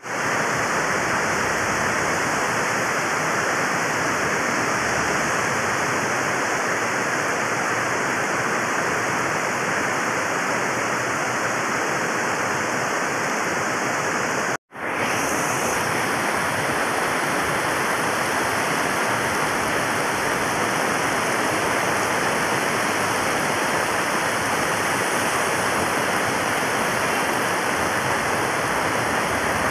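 Heavy downpour on a flooded street: a steady, dense hiss of rain and running water, broken once by a brief silent gap about halfway through.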